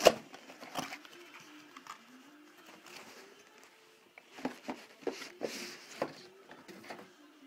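Handling noise from a laptop's cardboard box and packaging: a sharp knock at the start, a few lighter knocks after a second, then a cluster of knocks and a short rustle of packaging in the second half.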